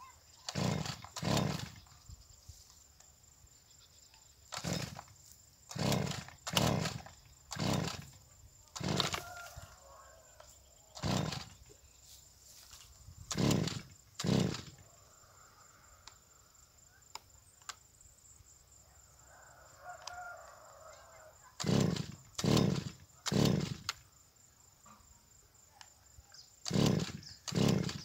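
Gasoline brushcutter being pull-started by its recoil cord: a string of short pulls, each a brief burst of the engine turning over, in ones, twos and threes with pauses, the longest pause in the middle. The engine does not catch and run.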